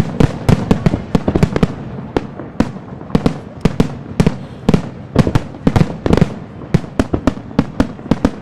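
Professional aerial fireworks display: a rapid, irregular volley of shell bursts, several sharp bangs a second over a steady low rumble.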